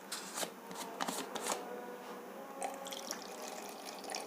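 Water being poured into the reservoir of an electric steam inhaler, up to its low-level mark, a steady trickle. A few clicks and knocks in the first second and a half.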